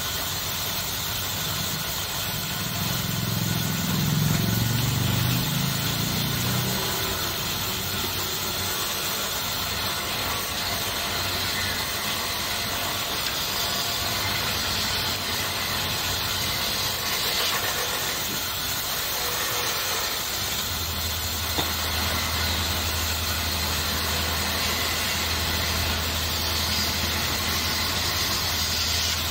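Wood lathe running steadily while a hand-held turning tool cuts into the spinning wooden spindle, a continuous scraping hiss of the cut over the machine's hum. The low hum grows a little stronger about two-thirds of the way through.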